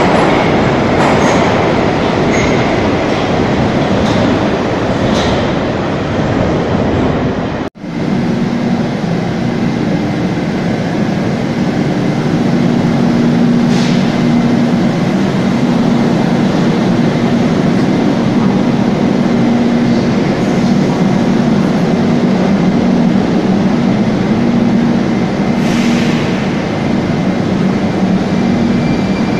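Moscow metro train running, a steady loud rumble of wheels on rails with a low motor hum. The sound breaks off for an instant about eight seconds in, then carries on as before.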